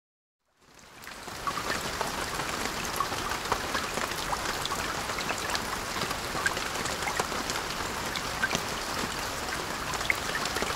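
Steady rain falling, with many small drops ticking against window glass. It fades in during the first second or so.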